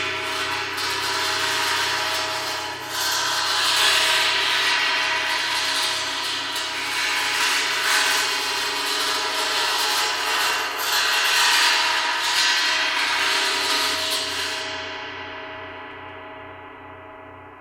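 Synthesized sci-fi sound effect: a steady drone of several held tones under a hissing, scraping layer that swells about every four seconds. The hiss drops away about three seconds before the end and the drone fades out.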